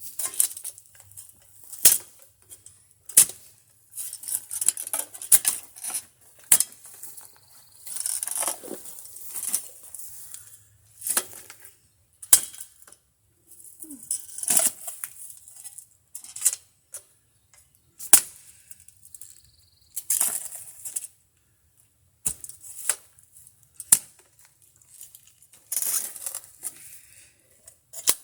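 Hand digging of a footer hole in hard ground: a digging tool strikes the ground with a sharp hit every second or two, and scrapes and scoops dirt between the strikes.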